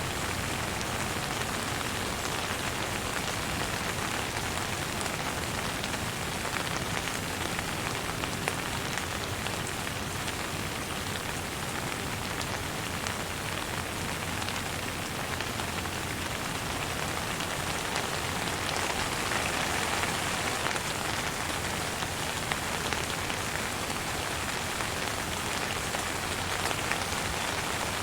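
Steady rain falling, with many small drops pattering; it swells slightly a little past the middle.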